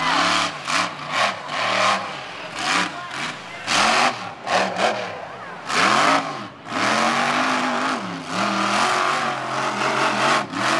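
Monster truck's supercharged V8 engine revving hard in repeated bursts, its pitch climbing and dropping, then held at high revs for the last few seconds with one brief dip.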